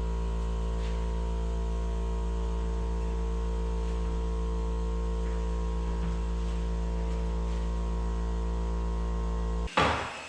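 A loud, steady electrical hum holding one unchanging pitch, which cuts off suddenly near the end and is followed at once by a sharp knock.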